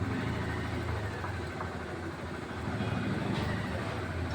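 A motor vehicle engine running with a low, steady rumble that grows a little louder about three seconds in, with a few faint clicks.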